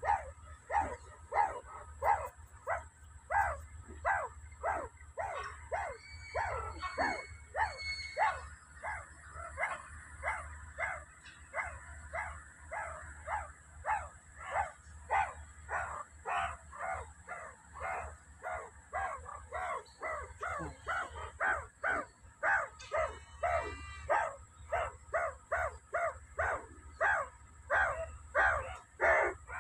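Meerkats giving a steady run of short, sharp barking calls, about two a second, without a break.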